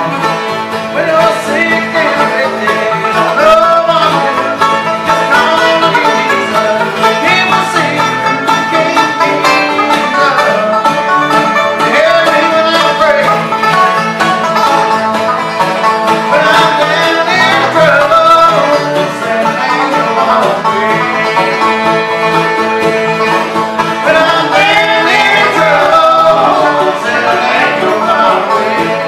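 Bluegrass played live on acoustic instruments: a banjo picking over strummed acoustic guitars, steady and continuous.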